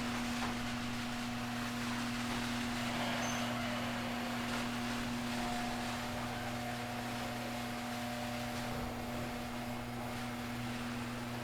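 Electric garage door opener running as it closes the door: a steady motor hum with the even rumble of the door travelling down its tracks.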